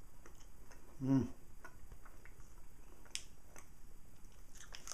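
A person chewing a coconut treat with hemp and chia, close to the microphone: soft, wet mouth clicks and ticks, with a short hummed "mm" about a second in.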